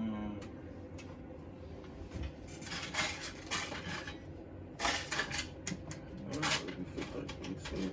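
Small hard objects being handled on a work surface: irregular clinks, clicks and rattles in several short clusters.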